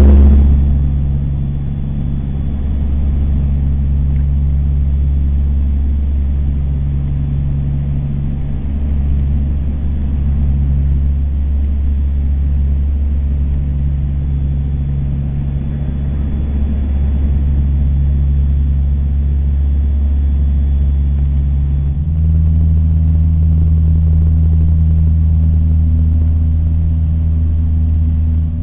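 Aircraft engines droning, heard from inside the passenger cabin on the approach to land: a loud, steady low hum with a tone that pulses on and off every second or two. About 22 seconds in, the engine note shifts higher and gets a little louder, a change in power setting.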